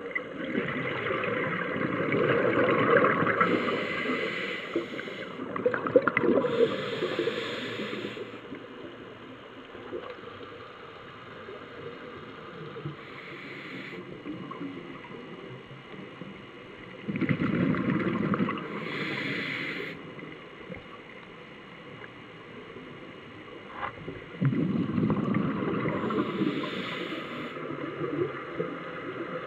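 Scuba diver breathing through a regulator underwater: hissing inhalations and bubbling exhalations in bursts a few seconds apart, with quieter gaps between breaths.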